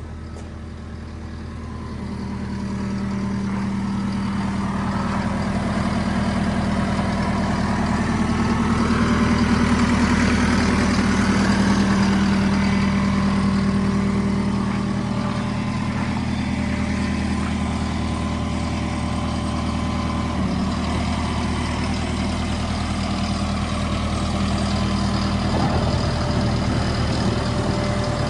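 A Volvo MC115C skid steer's diesel engine running steadily. It grows louder over the first few seconds, then holds an even note.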